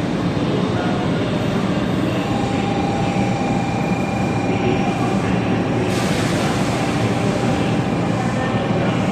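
Hello Kitty 500 Series Shinkansen train running: a steady noise of wheels and air with faint held whining tones, the hiss getting brighter about six seconds in.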